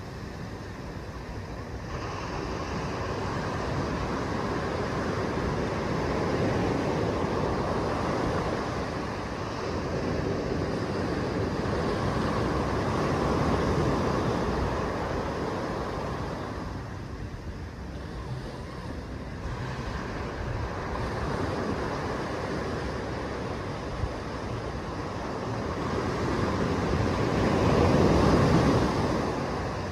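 Small waves breaking and washing up a sandy beach. The surf swells and fades every several seconds, loudest near the end.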